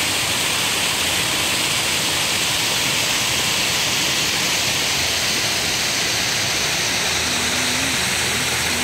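Steady rush of falling water into a garden pond.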